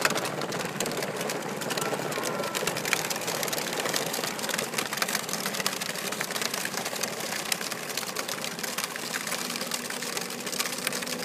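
Battery-powered ride-on toy quads driving on asphalt: a steady mechanical noise of small electric motors and plastic wheels, with many small clicks.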